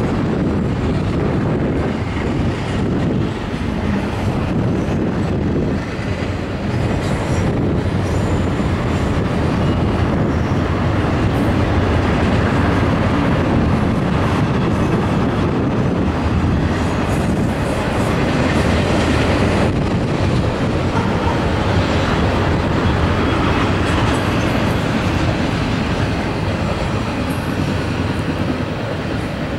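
Double-stack intermodal train's loaded container well cars rolling past, the steel wheels on the rails making a steady, unbroken noise.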